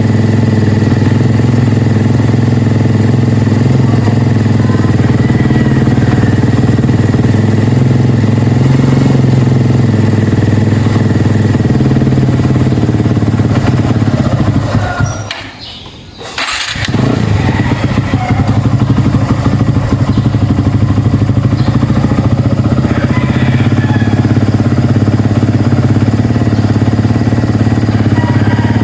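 Kawasaki Barako 2 175 motorcycle's single-cylinder engine running steadily; about halfway it dies away, is started again at once and keeps running, the stumbling of a hard-starting cold engine.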